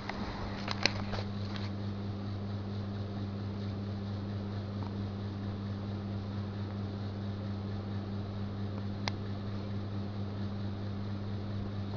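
Steady low hum, with a few short clicks about a second in and one sharp click near nine seconds.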